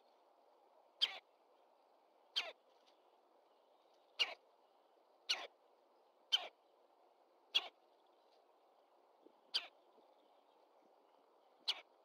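Red-bellied woodpecker giving short, sharp call notes, eight of them spaced one to two seconds apart, over a faint steady hiss.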